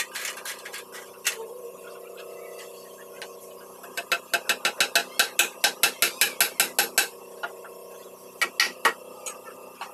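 A quick, even run of sharp metallic clicks from a hand tool being worked on wooden boards, about five a second for some three seconds, with a few more clicks near the end.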